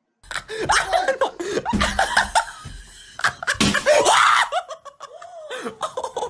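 A group of people laughing hard and shrieking, starting suddenly about a quarter second in.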